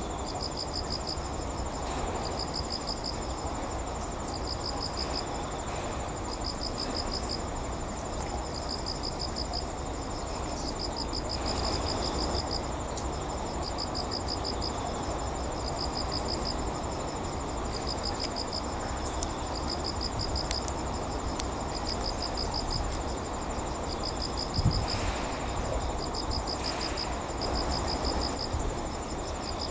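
Insects chirping outdoors in short pulsing bursts about once a second, over a steady high note and a low, even background rumble. A single brief thump comes near the end.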